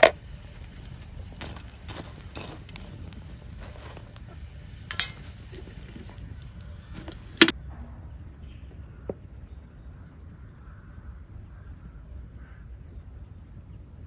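Metal kettle and white china teapot clinking as they are handled: a sharp clink at the start, several lighter clinks and taps over the next few seconds, a louder one about five seconds in and a last sharp clink about seven and a half seconds in.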